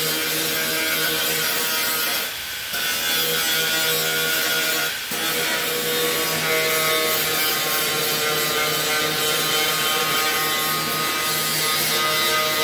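Angle grinder grinding the sheet steel of the truck's lower body panel, running steadily and dropping off briefly twice, about two seconds in and again about five seconds in, as the disc leaves the metal.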